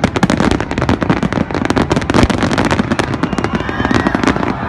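Fireworks display: a dense, rapid barrage of bangs and crackling from bursting aerial shells and crackle stars.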